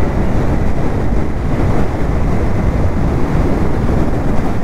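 Steady, loud rush of wind over the microphone of a moving motorcycle's action camera.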